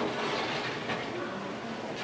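Steady rushing kitchen noise, with a sharp clink right at the start.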